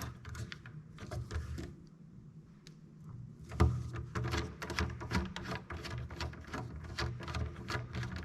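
Background music with a steady beat that thins out about two seconds in and comes back with a strong hit about three and a half seconds in.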